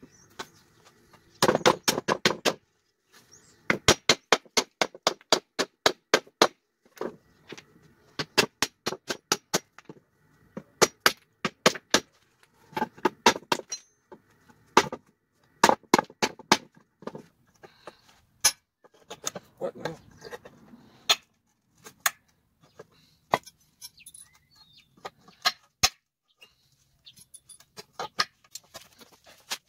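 Claw hammer striking a wooden pallet again and again, knocking its boards loose from the blocks: sharp wooden knocks in quick runs of several blows with short pauses between.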